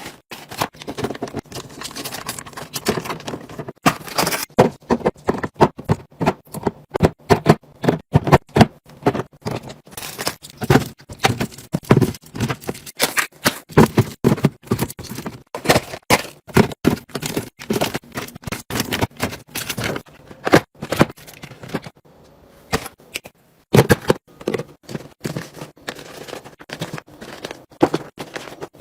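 A dense run of clicks, taps and clatters from items and containers being handled, opened and set down while restocking, several a second, with a brief lull about three quarters of the way through.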